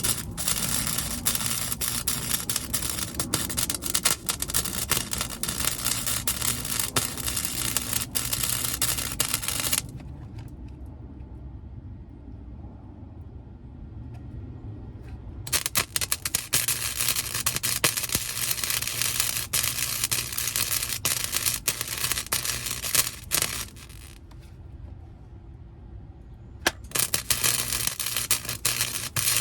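Welding arc crackling and sizzling on thin sheet-metal floor pans, in three runs of about ten, eight and a few seconds with short pauses between.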